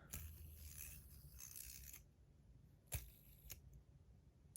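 Near silence with faint handling noise, then two soft clicks about half a second apart, from a PEI fidget spinner being handled in the hand.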